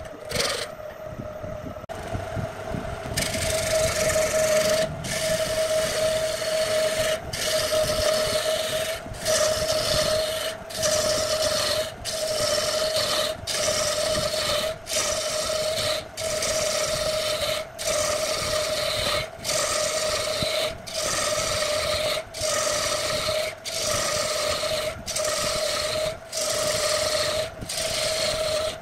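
Wood lathe running with a hand gouge cutting into a spinning wood blank: a steady hum under a rough scraping hiss. The cutting hiss picks up about three seconds in, then breaks off briefly over and over, roughly once a second.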